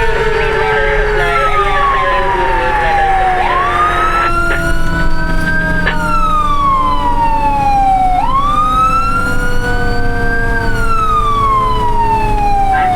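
Fire truck siren wailing, its pitch rising and falling in slow, even cycles of about five seconds each. Under it, a second, lower siren tone slowly winds down.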